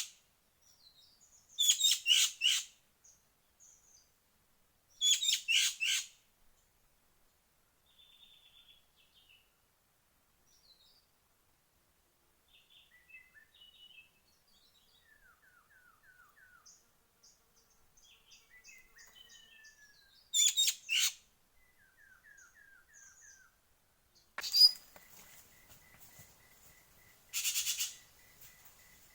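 Birds calling in the forest: loud bursts of rapid, chattering notes come three times, with fainter scattered calls and trills from other birds in between.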